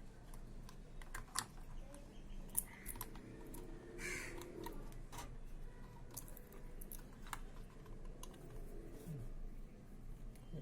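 Scattered light clicks and taps from handling an M.2 SSD and snapping its plastic retaining clip on a motherboard slot, with one sharper click about two and a half seconds in.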